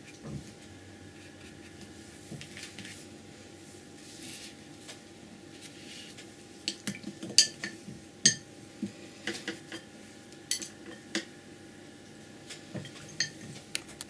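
Sharp clinks and taps of painting tools knocked against hard paint containers and the palette, coming in a run from about halfway through and thinning out towards the end; before that only soft handling sounds.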